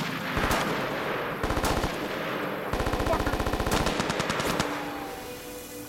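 Rifle fire in a firefight: single shots and rapid automatic bursts, the longest lasting about a second, with the firing thinning out near the end.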